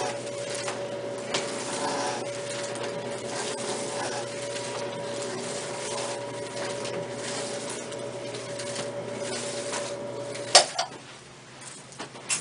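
A small motor hums steadily, with rubbing and light clicks over it. It cuts off with one sharp, loud click about ten and a half seconds in.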